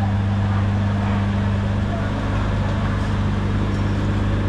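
A steady low machine hum at one unchanging pitch, with a fainter hum an octave above it.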